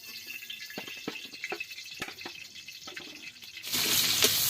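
A few light clicks and knocks, then about three and a half seconds in a loud, steady rush of running water starts suddenly and keeps going.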